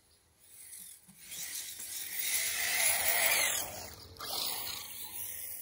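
A radio-controlled truck driving past over dirt: a rushing whir of motor and tyres that swells up, peaks about three seconds in and falls away, swelling briefly once more before fading.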